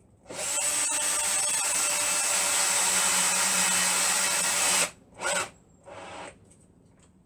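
Power drill driving a screw into a wooden fence slat, running steadily for about four and a half seconds, then stopping suddenly. A short burst follows, then a brief scrape.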